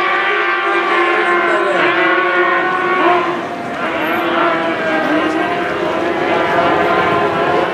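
Outboard engines of several O-500 class racing catamarans running at full throttle as the boats race past, a high, steady whine of overlapping engine notes. Around the middle the pitches dip and slide as boats pass, then climb again.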